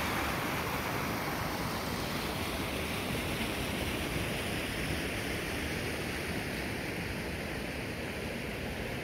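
Rushing water of a rain-swollen, muddy stream: a steady rushing that grows slightly softer toward the end.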